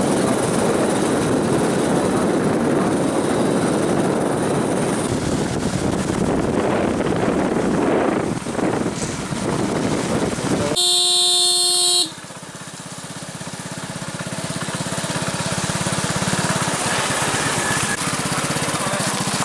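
Motor vehicle running with dense engine and road noise, then a horn sounds once, steady for about a second, a little past the middle. After it the noise drops away abruptly and a pulsing engine sound grows steadily louder.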